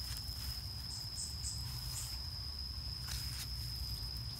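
An insect trilling steadily on one unbroken high tone, with a few short higher chirps a second or two in and a brief rustle of grass about three seconds in as the puppies move.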